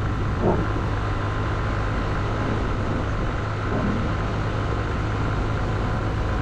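Honda CB125F's 125cc single-cylinder engine running steadily while riding, under a constant rush of wind and road noise on the rider's microphone.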